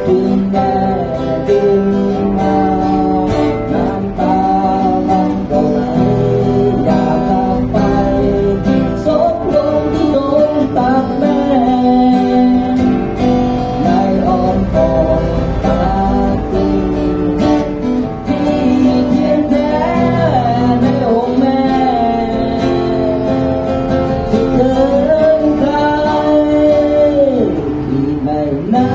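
A man singing a slow song while strumming an acoustic guitar, with long held notes that waver.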